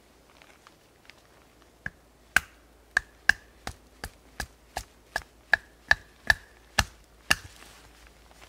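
A wooden baton striking the spine of a bushcraft knife driven into a piece of wood, batoning to split it. There are about fourteen sharp knocks, roughly two or three a second, each with a brief ring, starting about two seconds in.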